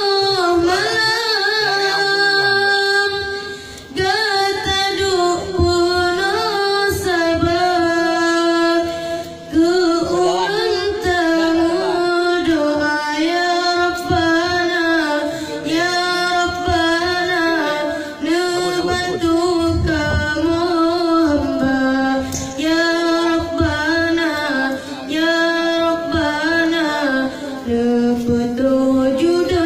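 A solo high voice singing a slow, ornamented melody, holding long notes and bending them in melismatic turns, with short breaths between phrases.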